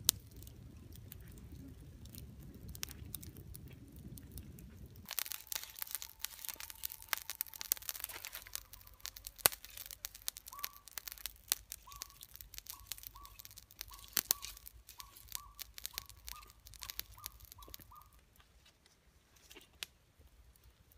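Wood fire crackling and popping, with a low rumble for the first five seconds that stops suddenly. From about ten seconds in, a bird calls a quick string of short repeated notes over the crackle.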